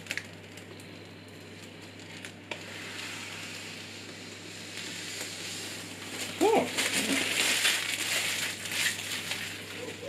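Thin protective plastic film being peeled off a tempered-glass panel and crumpled, quiet at first, then loud crinkling and rustling from about six seconds in, with a brief squeak.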